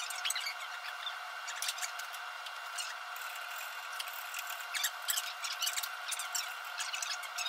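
Drawknife shaving wood in short, irregular scraping strokes, several a second in places, over a steady background hum.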